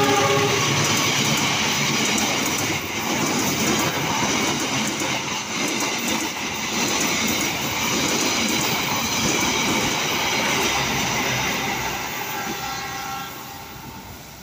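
Passenger train coaches passing close by at speed, with the steady rumble and rattle of wheels on the rails. The train fades out over the last two seconds as it draws away. The tail end of the locomotive's horn, dropping in pitch, is heard at the very start.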